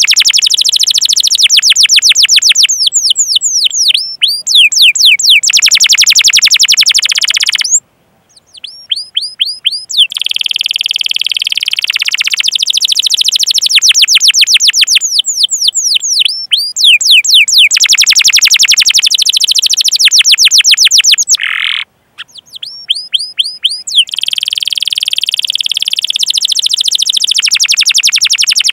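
Domestic canary singing long, loud runs of rapid, high-pitched 'cuit cuit' chirps and fast rolling trills, phrase after phrase. The song breaks off abruptly twice, for a moment, near 8 and 22 seconds.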